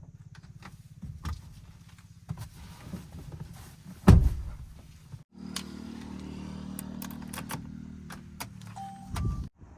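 Diesel engine of heavy machinery running, with scattered clanks and a loud heavy thump about four seconds in. The sound drops out briefly just past five seconds and comes back as a different steady engine note, with another thump near the end.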